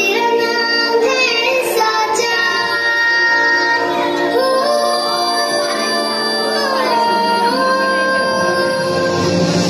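A children's action song: a child's singing voice carries the melody over instrumental backing, with held notes that glide from pitch to pitch.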